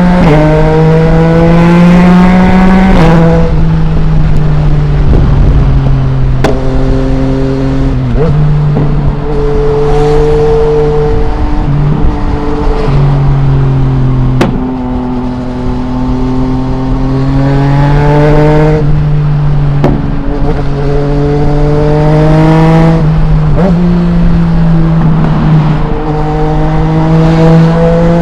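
Yamaha MT-09's 847 cc inline three-cylinder engine, breathing through an Akrapovic full-system exhaust with no dB killer, heard while riding. The revs climb and drop again several times as it pulls through the gears and rolls off, with a few sharp clicks or pops in between.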